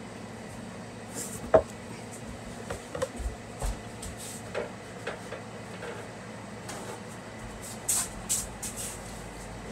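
Household knocks and clatters: one sharp knock about a second and a half in, then scattered smaller knocks and rustles, over a steady low room hum.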